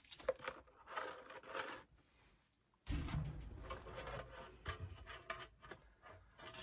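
Handling noises of a new whole-house water filter cartridge being fitted into its clear plastic housing: soft scrapes and rustles, then, from about three seconds in, a low rubbing noise with a run of small clicks and knocks as the cartridge goes down into the housing.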